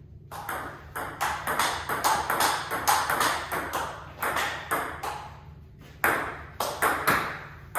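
Table tennis rally: the ball being struck by paddles fitted with Hurricane 3 Neo rubber and bouncing on the table, sharp clicks about three or four a second. The clicks break off briefly a little past five seconds in, then resume.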